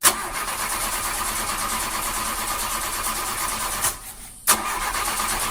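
Car engine running steadily; it drops away for about half a second near four seconds in and comes back abruptly.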